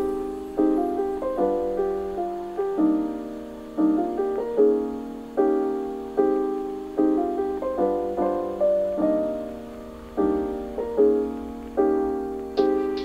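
Background lo-fi piano music: a new chord is struck roughly every second and each one fades away.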